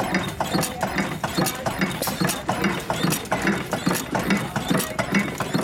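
Samson Iron Works single-cylinder stationary gas engine with twin flywheels running, making a steady, even rhythm of knocks.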